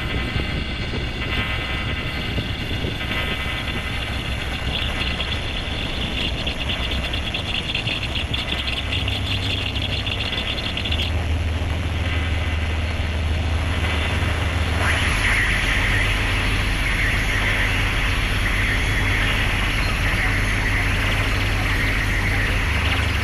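Improvised electronic drone music from a Ciat-Lonbarde Cocoquantus and a Korg Volca FM synthesizer: a dense, noisy texture over steady low tones. The texture shifts about nine to eleven seconds in, and a brighter high band comes in from about fifteen seconds.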